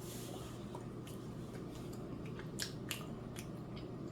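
Close-up eating sounds: chewing air-fried french fries, with a few short, sharp crunchy clicks over a steady low hum.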